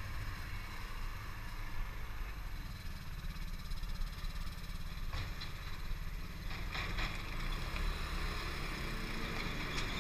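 SYM Fighter 150 scooter's single-cylinder four-stroke engine running steadily under way, heard from on the bike, with a low, unbroken rumble. A few brief knocks about halfway through.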